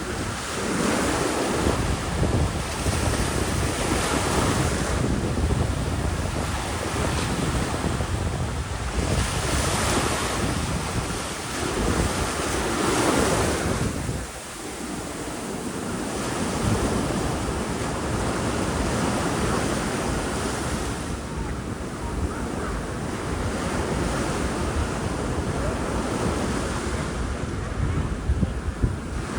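Ocean surf breaking and washing up a sandy beach, swelling and easing in repeated washes, with wind buffeting the microphone as a low rumble.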